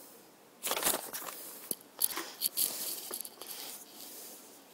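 A hard plastic toy drink maker being handled: short rustles and several sharp plastic clicks as hands take hold of its tube and base.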